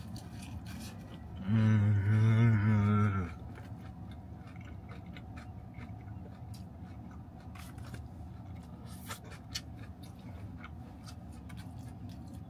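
A man chewing a mouthful of fried chicken, with one long, low, wavering hummed "mmm" of pleasure about a second and a half in, then faint clicks of chewing.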